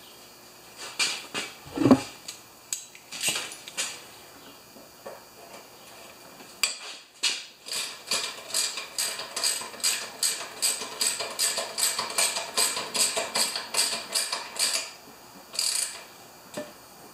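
A few metal clinks and a knock, then a long even run of ratchet wrench clicks, about three a second, as the mower's oil drain plug is screwed back in.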